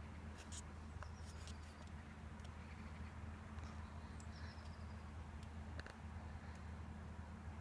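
Faint outdoor background: a steady low hum with a few soft clicks and a couple of brief high chirps. The church bell is not ringing.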